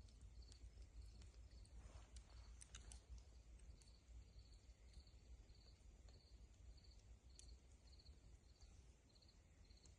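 Near silence of a night outdoors: insects chirping in a steady rhythm, about two short chirps a second, with a few faint clicks about two to three seconds in and a low background rumble.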